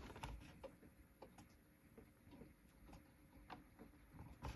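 Near silence with faint, irregular ticks and crackles over a faint hiss, and one slightly louder click near the end.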